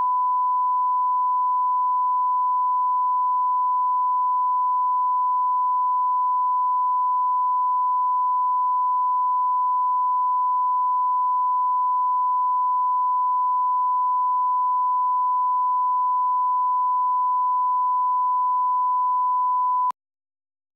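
Broadcast line-up test tone played with colour bars: a single steady, unbroken pure beep that cuts off suddenly near the end.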